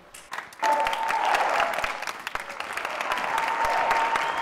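Audience applauding, breaking out suddenly about half a second in, with a thin steady high tone sounding under the clapping.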